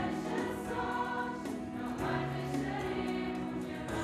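Choir singing together, with held notes that change every second or so, at a moderate level.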